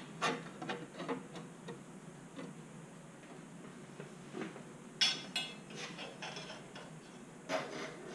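Flat steel plates clinking and clanking against a steel welding table as they are handled and set down, with a couple of louder ringing clanks about five seconds in.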